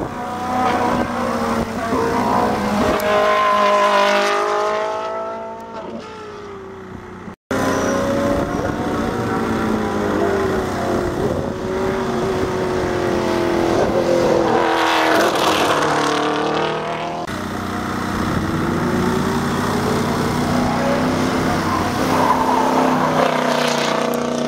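Race car engines revving hard as the cars accelerate past one after another, pitch climbing and dropping through gear changes. The sound breaks off abruptly about a third of the way in, then resumes with the next car.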